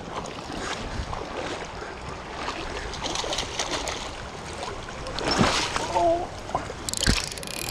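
Shallow river running, with water splashing as a hooked brown trout is brought to the landing net, loudest about five seconds in, and a sharp knock near the end.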